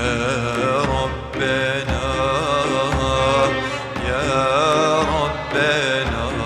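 A man sings a Turkish ilahi (Islamic devotional hymn) in a wavering, ornamented vocal line, over instrumental accompaniment with percussion.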